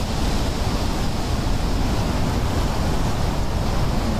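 Typhoon wind and driving rain, a loud steady rush with heavy wind buffeting on the microphone.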